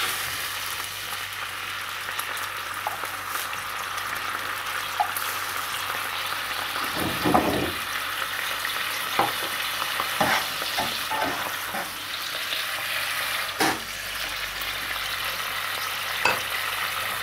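Soy-sauce cooking liquid boiling in a hot non-stick pan: a steady sizzling hiss with scattered sharp pops and crackles of bursting bubbles.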